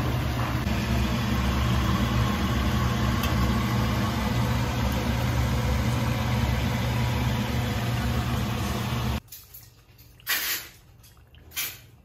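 Chopped shallots deep-frying in oil in a stainless steel pan: a steady sizzle over a low hum. The sound cuts off abruptly about nine seconds in, and after that it is much quieter with two brief louder sounds.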